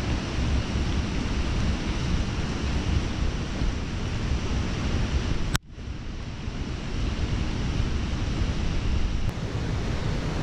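Steady rushing of a swollen, muddy stream in flood, with wind rumbling on the microphone. A click and a brief dip in the sound come about halfway through.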